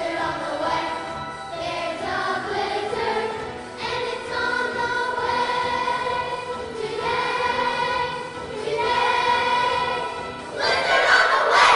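Children's choir singing a song in held phrases with accompaniment, swelling louder near the end.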